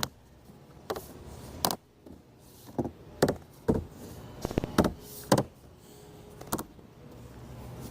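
Hard resin panels of a plastic deck box knocking and clicking as they are handled and fitted together, about ten sharp irregular knocks.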